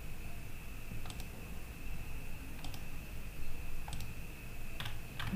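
About five separate clicks of a computer mouse at uneven intervals, over a faint steady high-pitched tone.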